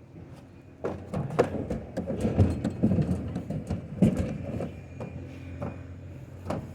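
Metal appliance parts being handled: irregular knocks and clattering, busiest in the first half, over a steady low hum.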